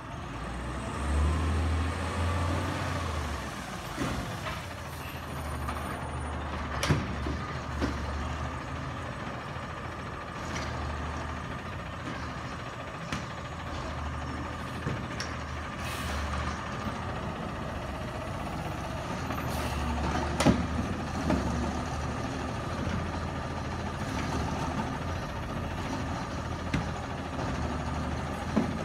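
CNG Peterbilt 320 garbage truck with a McNeilus Auto-Reach side-loader running as it creeps along the street. The engine rises and falls in spells under a faint steady whine, with a few short hisses of air and sharp knocks, the loudest about twenty seconds in.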